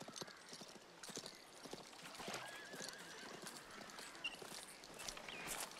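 Horses' hooves clip-clopping in an irregular patter of knocks, with a few brief wavering whistled calls over them.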